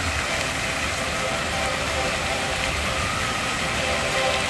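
Dancing fountain's water jets spraying into the pool: a steady rushing noise over a low rumble.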